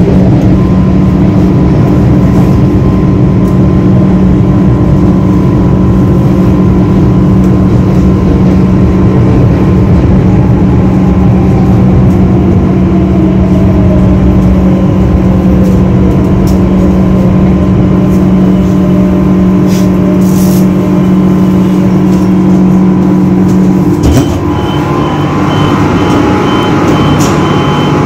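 Metro train heard from inside the car, rolling and braking into a station: a loud steady hum from the traction equipment, with a long falling whine as the train slows. About 24 s in the hum cuts off as the train stops, and a rapid high beeping begins.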